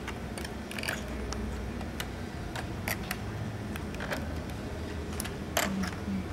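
Irregular light plastic clicks and ticks as a yarn holder is worked onto the hooks of a circular knitting machine by hand, over a low steady hum.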